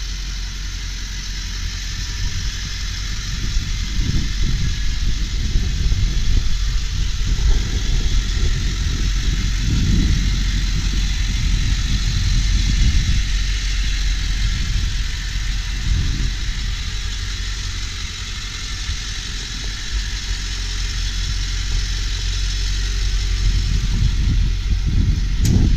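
Ford 7.3L Power Stroke turbo-diesel V8 idling steadily.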